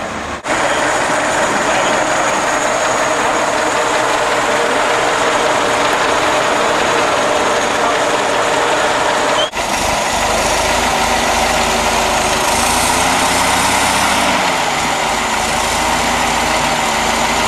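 Vintage open racing car's engine idling close by, a steady running clatter whose pace shifts slightly about fourteen seconds in. The sound breaks off briefly twice, about half a second and nine seconds in.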